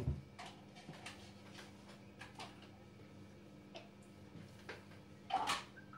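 Quiet kitchen room tone: a faint steady hum with scattered light ticks and clicks at uneven spacing, and one short, louder clatter about five seconds in.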